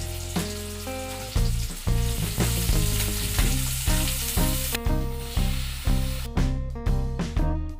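Chopped onion and green chilli sizzling in hot oil in a pan while being stirred with a ladle; the sizzle drops away about five seconds in. Background music with a steady beat plays throughout.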